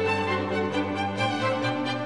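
Background music carried by bowed strings, held notes changing pitch.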